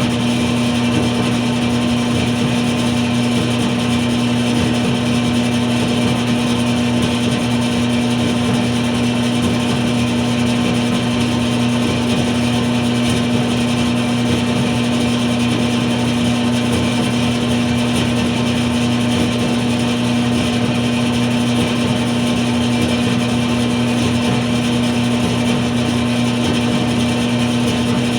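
Clothes dryer running: a loud, unchanging motor hum over a steady whir of air and drum.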